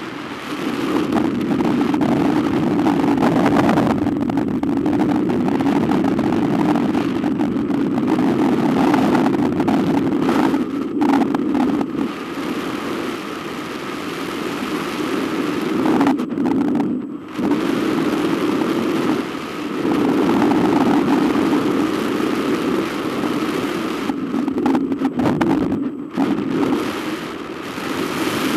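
Airflow rushing over the microphone of a camera mounted on a hang glider in flight: a steady, low-pitched wind rush that eases briefly and surges back several times.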